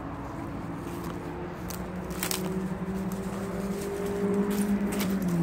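An engine's steady hum drawing nearer, growing louder throughout, with a few sharp clicks over it.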